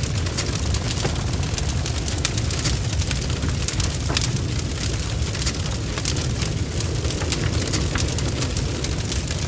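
Barn fire blazing: a steady low rumble of flames with many sharp crackles and spitting pops.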